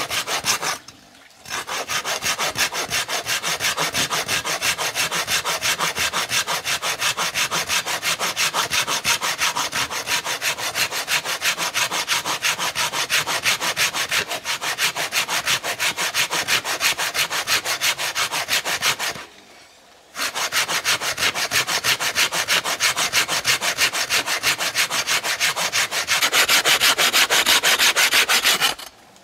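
Hand saw cutting through wood in steady, even strokes, about three a second, pausing briefly about a second in and again around two-thirds of the way through, with harder strokes near the end.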